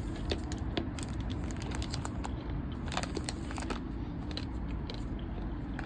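Baseball trading cards being handled: scattered light clicks and soft rustles, over a steady low background hum.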